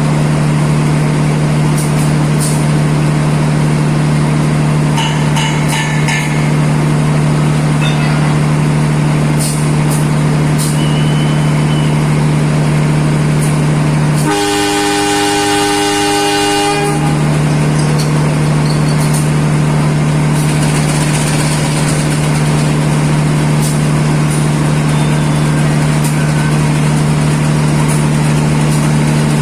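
Diesel locomotive running with a steady low hum, its horn sounding once for about two and a half seconds about halfway through.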